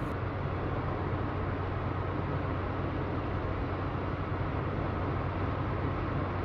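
Steady noise of a car driving at low speed: an even rush of road and tyre noise over a constant low engine hum.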